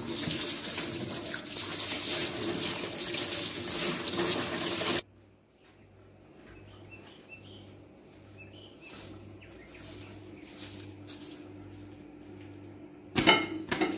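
Tap water running onto rice in a plastic colander while it is rinsed by hand, a steady splashing hiss that cuts off abruptly about five seconds in. Then it is quiet with a few faint clicks, and a couple of sharp knocks come near the end.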